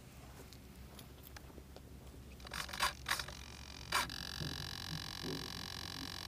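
A few knocks and scrapes, then about four seconds in the small electric motors of a TwinCam RC model start up and run steadily with a high whine, spinning at idle before takeoff.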